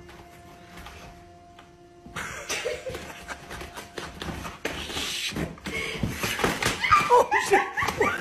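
Loud scuffling and knocking of a cardboard box starts about two seconds in, then a person laughs in short repeated bursts near the end, over background music.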